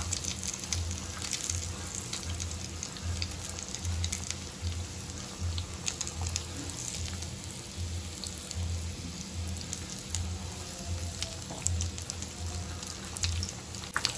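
A Cheetos-crusted mozzarella corn dog deep-frying in hot oil: a steady sizzle with small crackles.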